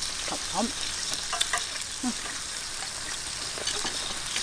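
Sliced beef sizzling steadily on a metal grill pan over a portable gas burner, with a few light clicks of utensils against the pan.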